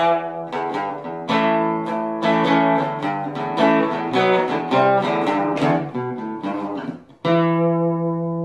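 Acoustic guitar music: a run of picked notes, then a brief break and a final chord left ringing, slowly fading.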